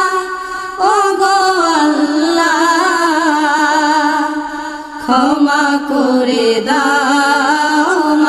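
Wordless vocal interlude of a Bangla gojol (Islamic devotional song): voices sing a wavering, ornamented melody in long held phrases with no drums, a new phrase entering about a second in and again about five seconds in.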